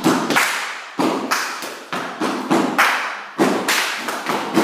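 A group of dancers stamping and stepping on a hall floor in time together, a rapid run of thuds about three a second, each leaving a short echo in the room.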